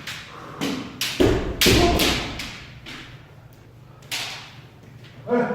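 Kendo sparring: bamboo shinai strikes and bare feet stamping on a wooden dojo floor, with a cluster of sharp impacts about a second in and another single impact around four seconds. A short shout comes near the end.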